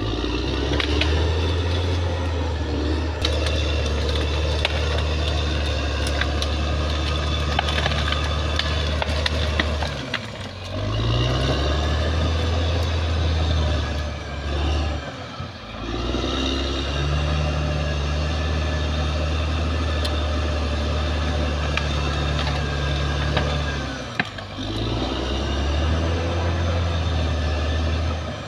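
Caterpillar D6R XL bulldozer's diesel engine running hard under load, its pitch dipping and climbing back up a few times, with scattered clicks and knocks.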